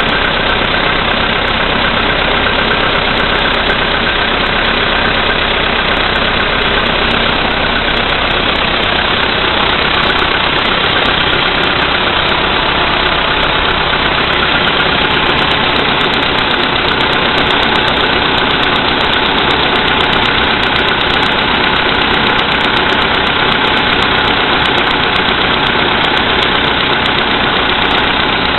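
Volkswagen CFNA 1.6 petrol four-cylinder idling steadily after a cold start at −5 °C, with a knock from the engine.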